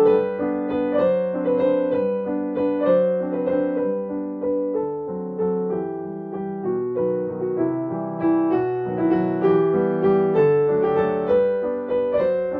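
Background piano music: a steady, even-paced melody of single notes, each fading after it is struck, over a lower accompaniment.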